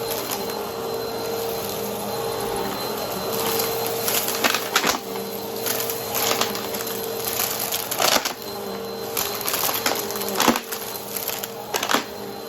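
Vacuum cleaner with a spinning brushroll running steadily, with irregular sharp crunches and cracks as it picks up dry debris.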